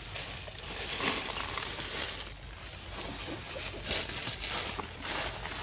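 Outdoor forest ambience: a rushing hiss that swells and fades every second or so.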